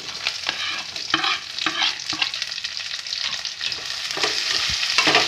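Sliced onions sizzling in hot mustard oil in a pan while they are stirred, with a spatula scraping the pan several times.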